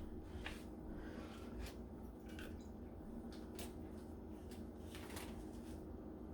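Faint, irregular short clicks and rustles of objects being handled, about a dozen in a few seconds, over a low steady hum.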